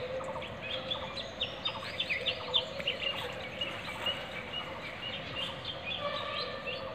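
A chorus of many small birds chirping and twittering together, with dense short calls overlapping, over a steady hum.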